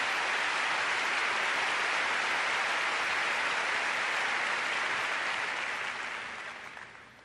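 Large crowd applauding, a steady even clapping that fades away over the last second or two.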